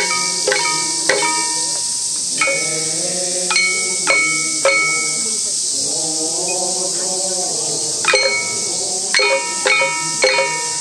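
Irregular strikes on small percussion instruments of a Kūya nenbutsu dance, each with a bright metallic ring. The strikes come in clusters near the start, the middle and the end, and a voice chants in the middle stretch. A steady high hiss runs underneath.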